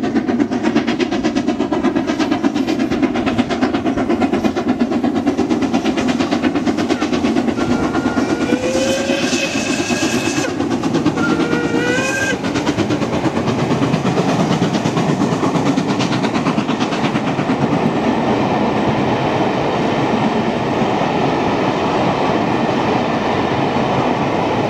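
Main-line steam locomotive running hard with rapid exhaust beats, then giving two whistle blasts about eight and twelve seconds in: the first longer, the second short and bending upward. Its train of coaches then rolls past with a steady rumble and rail clatter.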